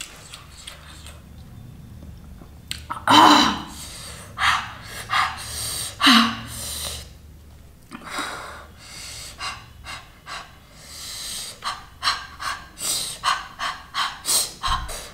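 A woman breathing hard through her mouth in short, sharp gasps from the burn of spicy food. The breaths come in a run of separate bursts that get quicker and closer together near the end.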